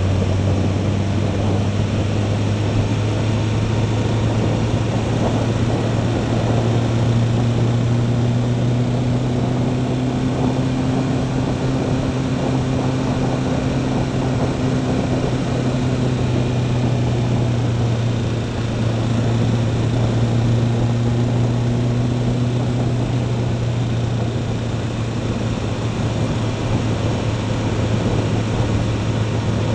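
Motorcycle engine running at cruising speed over steady wind and road noise, its tone rising a little as the bike speeds up and then easing back down.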